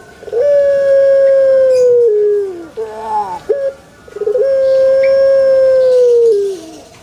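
Puter pelung, a ringneck dove bred for its drawn-out coo, calling: two long coos, each held steady for about two seconds and then falling in pitch, with a few short coos between them.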